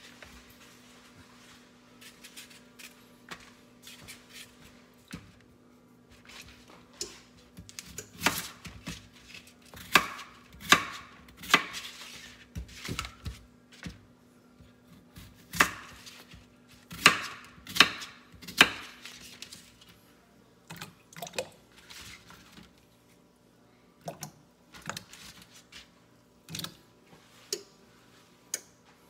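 Kitchen knife chopping raw potatoes on a plastic cutting board: irregular sharp knocks, thickest and loudest in the middle, over a faint steady hum.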